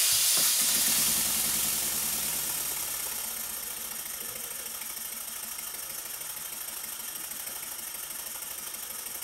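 Cotswold Heritage Perseus single-cylinder model horizontal steam engine running on compressed air: a fast, even exhaust beat over a hiss of air that is loudest at first and fades over the first few seconds. The engine is running well, with very good valve timing.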